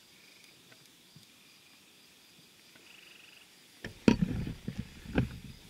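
Faint high chirping of night insects, then about four seconds in a consumer firework goes off: a sharp bang followed by crackling pops and a second bang about a second later.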